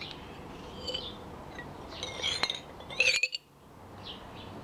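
Small birds chirping in short calls, with a light clink of the gold bead against the glass beaker as it is swirled in nitric acid, about two and a half seconds in.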